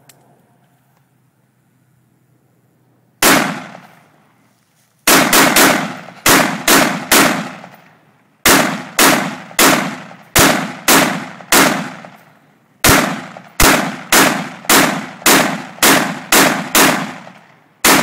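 AR-15 rifle in .223 fired semi-automatic: one single shot about three seconds in, then quick strings of shots, about two or three a second, with short pauses between strings.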